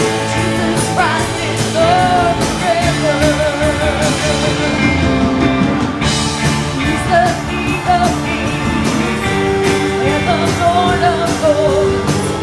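Live Pentecostal praise music: a singer with a strong wavering vibrato over a band, drums keeping a steady beat under sustained lower notes.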